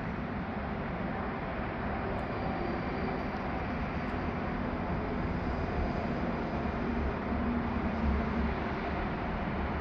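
Steady background rumble and hiss with a faint steady hum, without any distinct event.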